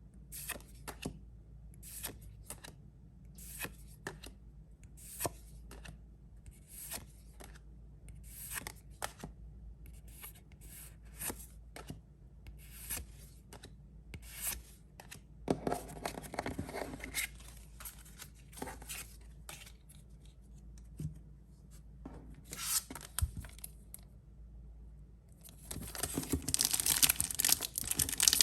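Pokémon trading cards being handled: a string of short card-on-card swishes, roughly one a second, as cards are slid one behind another. Near the end, the foil wrapper of a booster pack is torn open and crinkles loudly.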